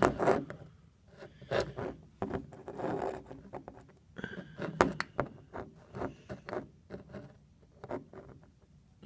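Two Honda HR194 lawnmower carburetors handled on a wooden tabletop: irregular clicks, taps and scrapes as their metal float bowls knock and slide against the wood and each other.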